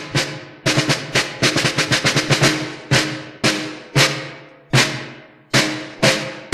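Drums playing: a rapid drum roll, then a series of single hits spaced half a second to a second apart, each ringing out and fading.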